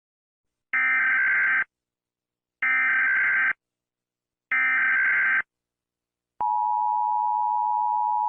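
Emergency Alert System tones. First come three buzzy SAME header data bursts, each about a second long and roughly two seconds apart. Then, about six seconds in, the steady two-tone EAS attention signal (853 and 960 Hz) begins.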